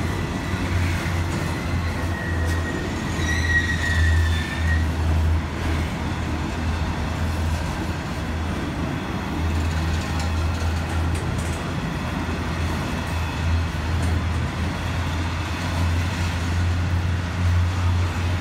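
A freight train's long rake of bogie hopper wagons rolling past, a steady heavy rumble. A high wheel squeal rings out for a few seconds near the start, loudest about four seconds in.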